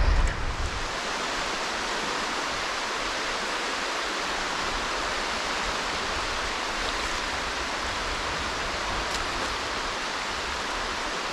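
Small waves washing in over shallow estuary water, a steady even rushing hiss. A low rumble sounds in the first second.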